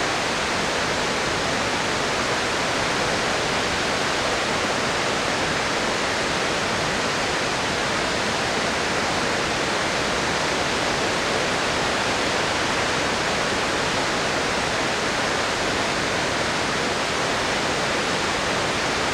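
Flood water released from Kawaji Dam, a concrete arch dam, pouring down at about 200 cubic metres a second after typhoon rain: a steady, unbroken rush of falling water.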